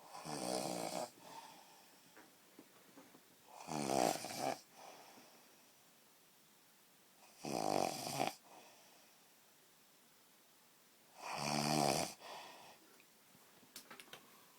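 A person snoring: four loud rasping snores, each just under a second long, coming about every four seconds.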